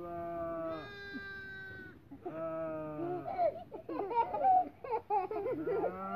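A newborn lamb bleating back and forth with a man imitating its bleat: long, drawn-out calls, with a quickly wavering stretch in the middle.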